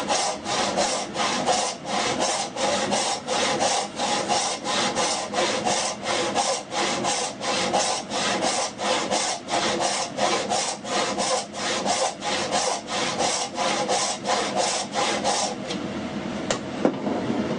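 Hand saw cutting through wood in steady back-and-forth strokes, about two to three strokes a second, stopping about fifteen seconds in; a single light knock follows near the end.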